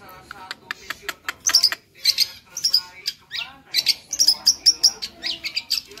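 Long-tailed shrike (cendet) singing a fast, varied song of sharp clicks, chirps and short whistles, full of lively mimicked calls of other birds.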